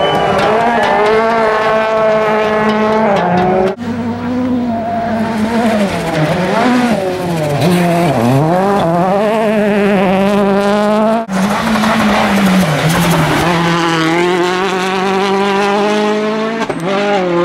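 Ford Fiesta RS WRC rally cars' engines revving hard through gravel corners, the pitch dipping and climbing again as the throttle comes off and back on. Three separate passes are cut together, with abrupt breaks about four and eleven seconds in.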